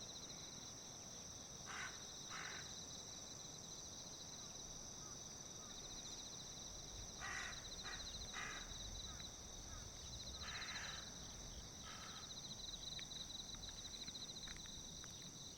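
A steady chorus of shrilling insects, one pulsing and one higher and even, with a crow cawing several times over it: two caws about two seconds in, a quick run of caws around seven to nine seconds, and a longer caw near eleven seconds.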